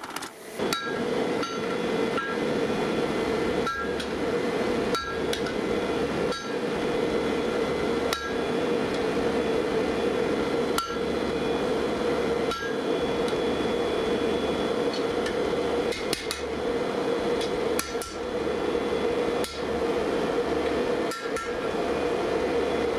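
Hammer blows on hot steel at an anvil, a dozen or so strikes spaced irregularly a second or more apart, each with a short metallic ring. Under them a steady roar, as of a forge burner or blower, runs throughout.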